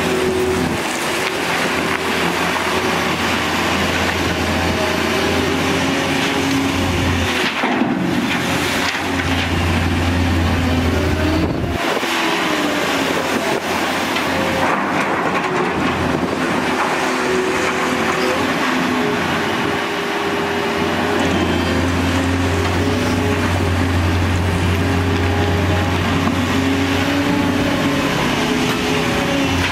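Diesel engines of a Volvo crawler excavator and an articulated dump truck running steadily. The excavator's engine note rises and falls with load as it digs and swings its bucket.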